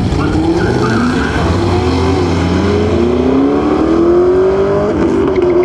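Two drag cars, a fifth-generation Chevrolet Camaro and a Ford Mustang, launching side by side and accelerating hard down the strip. Their engine notes climb in pitch, fall back about two seconds in and climb again, as at an upshift.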